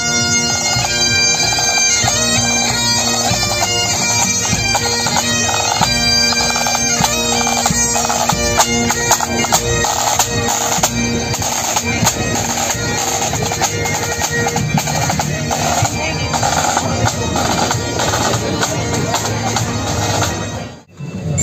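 A marching pipe band playing: bagpipes sounding a melody over their steady drones, with drums beating along. The music breaks off abruptly just before the end.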